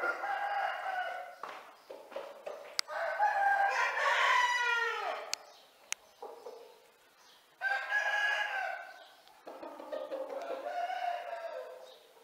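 Roosters crowing: four long calls one after another, the second the longest and loudest, falling away at its end.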